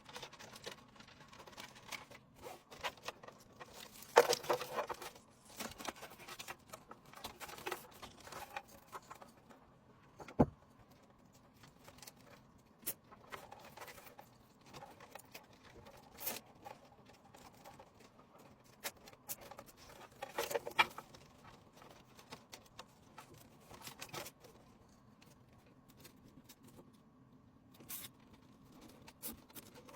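Faint handling noises of PC parts being worked on during a build: scattered clicks, taps and rustles. There are louder rustles about four seconds in and again about twenty-one seconds in, and a single sharp click about ten seconds in.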